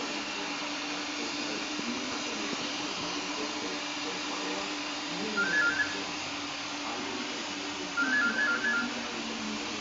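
Oxy-fuel gas cutting torches on a CNC profile cutter hissing steadily over a low machine hum. An electronic trilling ring, the loudest sound, cuts in twice, about five and eight seconds in.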